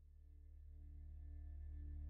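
A deep, steady drone tone with several higher overtones, fading in and growing louder, with a slight regular waver: a meditative 'frequency' drone of the kind used in healing and meditation audio.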